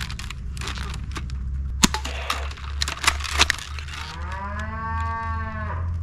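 A toy sniper blaster being fired at tabletop targets: a few sharp cracks over a steady low hum. Starting about four seconds in, a long pitched call rises and then falls over about a second and a half.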